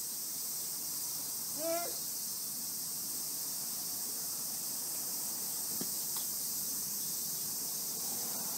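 A single short, high cry about two seconds in, from the toddler or the terrier, over a steady background hiss; a faint click follows near the end.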